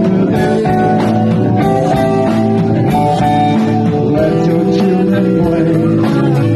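Live band music played loud in a club, with guitar, keyboard and drums keeping a steady beat under held notes.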